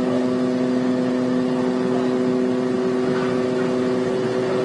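A ship's horn sounding one long, steady blast of several tones over a noisy background; its lowest tone drops out about four seconds in and the rest stop soon after.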